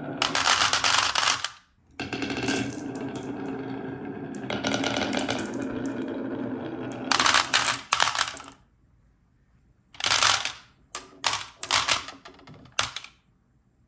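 Glass marbles rolling down a wavy wooden HABA slope with a steady rolling rumble, and clattering as they drop into a plastic toy dump-truck bed onto a heap of other marbles. Near the end the last single marbles land with a few separate clicks.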